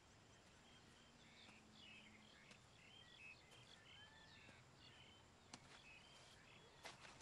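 Faint outdoor nature ambience: scattered short, high chirping calls over a low hiss, with a single sharp click about five and a half seconds in.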